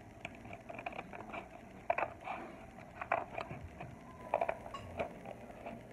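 Scissors cutting through a sheet of white paper in short, irregular snips, with the paper crackling as it is turned. The loudest cuts fall about two, three and four and a half seconds in.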